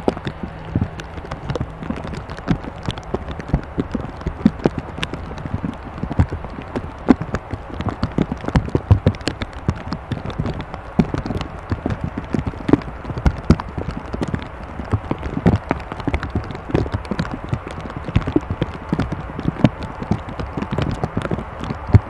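Heavy rain drumming on an Airbus A319, with many irregular knocking drops a second over a low steady hum.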